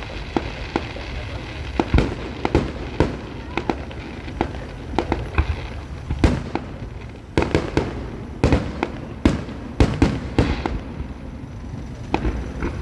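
Fireworks display: aerial shells bursting in a rapid, irregular barrage of loud bangs over a continuous low rumble, with clusters of bangs close together.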